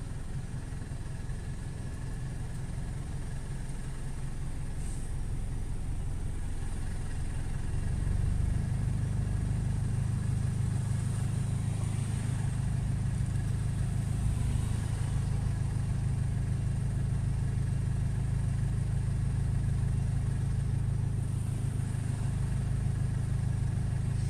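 Car idling in stopped traffic, heard from inside the cabin as a low steady drone that grows louder about eight seconds in. Faint swishes of other cars passing now and then.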